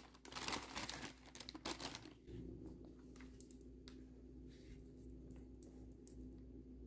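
Baby wipe being pulled from its plastic packet, with crinkling and rustling for about the first two seconds. After that come a few faint rubbing sounds as the wipe cleans the bisque.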